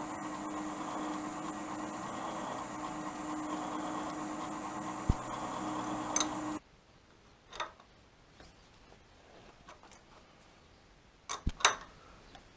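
Milling machine running with a steady hum, which cuts off abruptly a little past halfway. What follows is quiet, with a few light metallic clicks and taps near the end.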